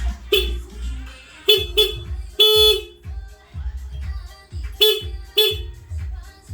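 Honda CB150X motorcycle's electric horn sounding six short honks, the fourth held a little longer, over background music with a steady dance beat.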